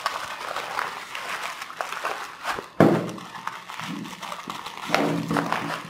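Rustling and crinkling of a nylon drawstring tripod bag and its plastic wrapping being handled and opened, with scattered soft clicks. A brief low vocal murmur comes about five seconds in.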